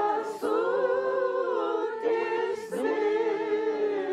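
A small group of older women singing a song a cappella in long held notes, with short breaks for breath between phrases.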